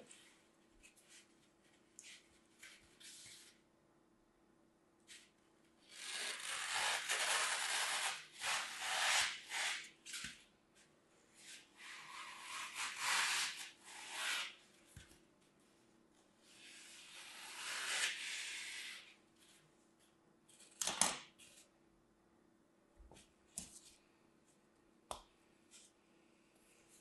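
Dry green floral foam being cut and rubbed by hand, a gritty rasping in three long stretches, then one sharp crack about three quarters of the way through, with a few small clicks.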